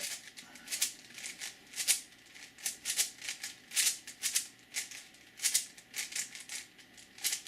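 5x5x5 Rubik's cube layers being turned by hand: an irregular run of quick plastic clicks and rattles.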